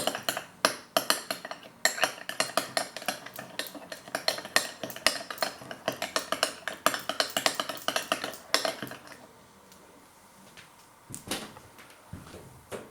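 A spoon stirring a thick mayonnaise-and-tomato seafood sauce in a bowl, clinking against the bowl in a fast, even run of taps. The stirring stops about nine seconds in, followed by a few quieter knocks.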